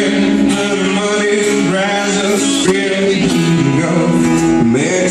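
A band playing a country-rock song live, with guitars to the fore.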